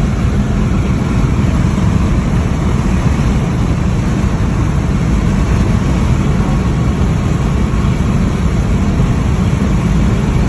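Car driving at highway speed, heard from inside the cabin: a steady, loud low rumble of road, wind and engine noise.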